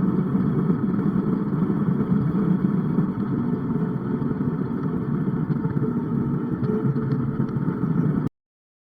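Farm machinery engine running steadily under load during corn harvest, cutting off abruptly near the end.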